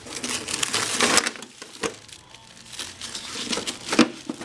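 Rummaging through a box of grinder accessories: paper and emery cloth rustling and crinkling, with small knocks of parts and one sharp clack about four seconds in.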